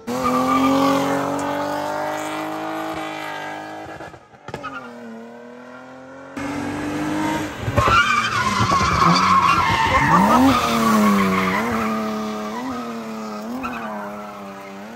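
BMW E30 drifting through a corner: the engine is revving hard while the tyres squeal. In the second half the engine note rises and falls in repeated quick blips as the throttle is worked.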